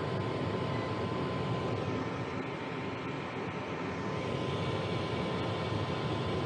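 Lennox 80% gas furnace's draft inducer motor running steadily, an even mechanical rush with a faint steady tone over it, drawing a normal current.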